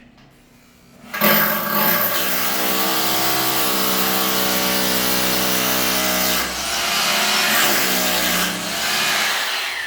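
A power drill's motor running steadily under load for about eight seconds, starting about a second in, with a couple of brief dips in speed.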